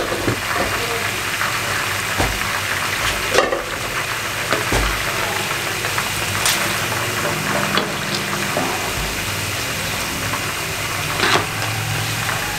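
Marinated chicken pieces deep-frying in hot ghee in a wok, a steady sizzle and bubbling. A few light clicks come through it, and near the end a long spoon goes into the oil to stir the pieces.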